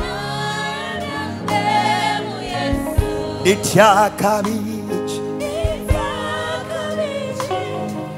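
Live gospel worship song: a man sings lead into a microphone with backing vocalists over steady instrumental accompaniment. The notes are long and held, with a wavering run of vibrato about halfway through.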